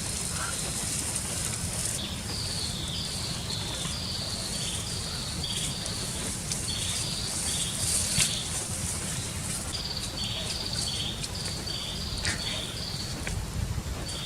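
Outdoor animal calls: a short falling chirp repeated in a steady series, about one or two a second, over a steady low background noise, with a few sharp clicks.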